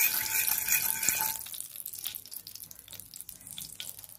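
Curry powder sizzling in hot oil in a pot, burning the curry. It is loud for about the first second and a half, then settles to a quieter crackle.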